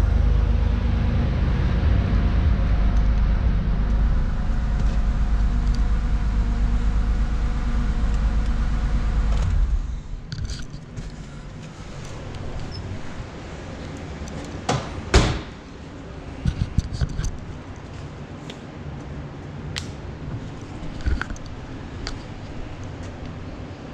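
A Porsche 911T's air-cooled flat-six idling warm, switched off abruptly about ten seconds in. A few seconds later come a couple of sharp knocks, the loudest a car door shutting, then scattered small clicks and handling noises.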